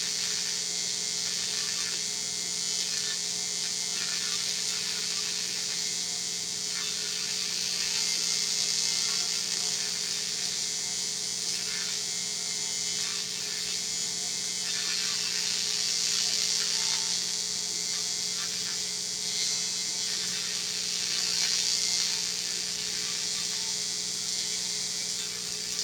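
AC TIG welding arc on aluminum, a steady buzzing hum with a bright hiss above it, as a gouged-out crack in an aluminum drive shaft is welded up.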